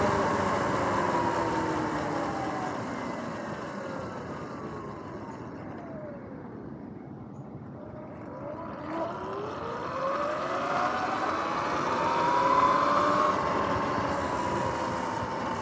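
Sur-Ron electric dirt bike's motor whine, several tones sliding down in pitch as the bike slows almost to a stop, quieter for a second or two, then climbing again as it pulls away, over a steady rush of wind and tyre noise.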